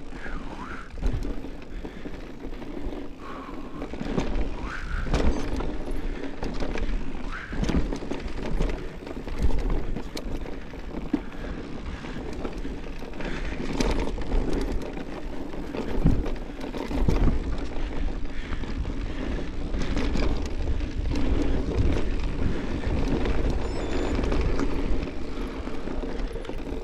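Mountain bike riding a rough dirt trail: steady tyre and ride noise with a low rumble, and many knocks and rattles as the bike goes over bumps.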